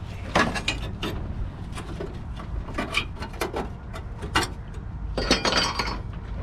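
Irregular light metallic clinks and knocks from a gloved hand handling the car's sheet-metal radiator support and radiator while test-fitting it, with a denser rattle of metal about five seconds in.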